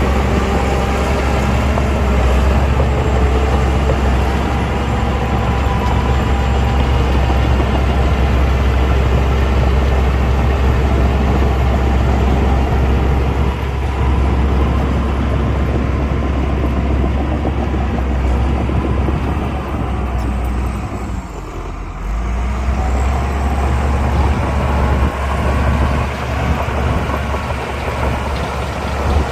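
Heavy diesel engine of earthmoving machinery running loud and steady, dropping briefly about three quarters of the way through before picking up again.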